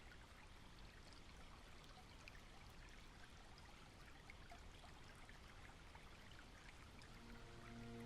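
Faint running water, an even trickling stream with small scattered drips. Soft music fades in near the end.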